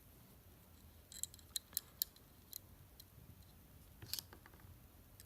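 A few light, sharp metallic clicks and taps at irregular intervals, most of them bunched together in the first two seconds and one near the end. They come from small folding-knife parts and a small tool being handled while the knife is reassembled.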